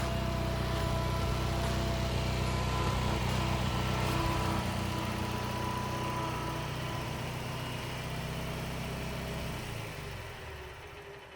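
Gravely Promaster 300 zero-turn mower's 20 hp Kohler Magnum engine running steadily, then dying away near the end.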